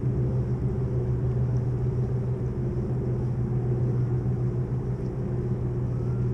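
A small motor running steadily with a low, even hum as the kayak travels under way.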